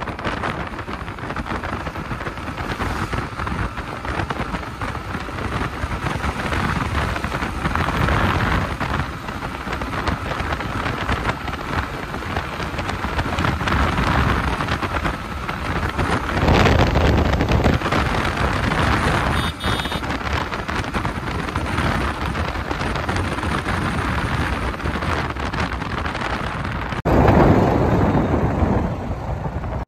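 Heavy wind rush on the microphone from a Yamaha MT-15 motorcycle riding at speed, with a faint steady engine note underneath. The rush swells louder twice, a little past halfway and near the end.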